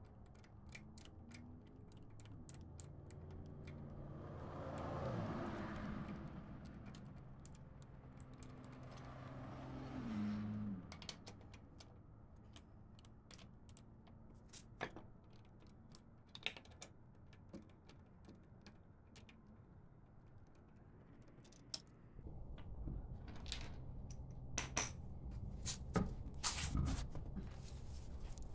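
Scattered light metallic clinks and taps of hand tools and hardware. Around five and ten seconds in, two sounds swell and fade, and a steady low hum comes in about three-quarters of the way through.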